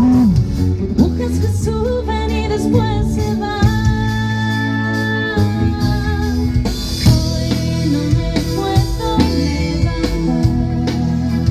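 Live band playing: a woman singing over electric guitars and a drum kit.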